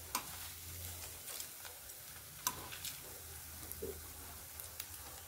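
Mulberry-leaf and egg batter fritters frying in hot oil, a soft steady sizzle. A few sharp ticks come over it, the sharpest about two and a half seconds in.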